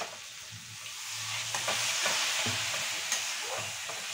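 A spatula stirring and scraping potatoes, pointed gourd and peas frying in masala in a metal kadai, with short scrapes and clicks against the pan. A steady sizzle swells about a second in.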